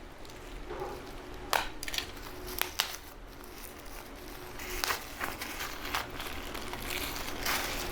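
Packaging being handled and opened by hand: scattered crinkles and small clicks, growing busier in the second half.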